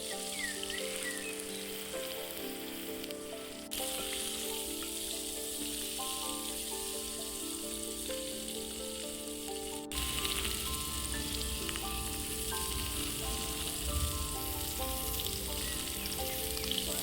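Food frying in hot oil, with a steady sizzle, under soft melodic background music. The sound jumps abruptly about four seconds in and again about ten seconds in.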